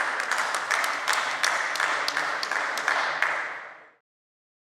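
Applause: many hands clapping together, which fades and cuts off about four seconds in.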